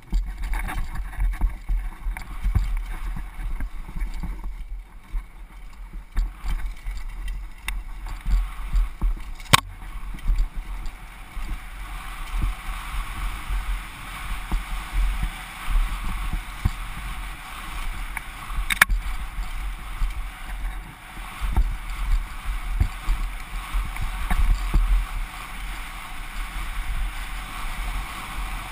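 Downhill mountain bike ridden fast over a rough dirt track, heard through a helmet-mounted GoPro: a steady low rumble and rattle from tyres, suspension and frame, with frequent knocks over bumps and two sharp snaps about nine seconds apart.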